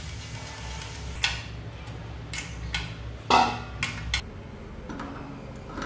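Wrench and steel bolts clinking while the nuts holding an engine to a steel angle-iron bracket are tightened: a series of short, sharp metal clinks, loudest a little over three seconds in.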